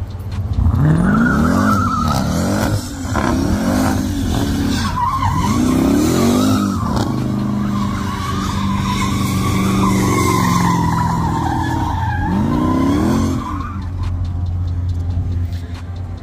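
A car spinning its tyres in a burnout: the engine revs rise and fall several times while the tyres squeal in one long screech that dies away a couple of seconds before the end.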